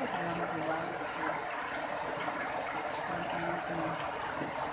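Steady rushing of water in a flood: rain falling on standing floodwater and a wall drain pipe gushing into it.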